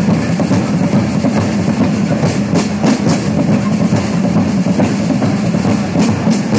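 Music driven by loud drumming, with drum strokes beating continuously.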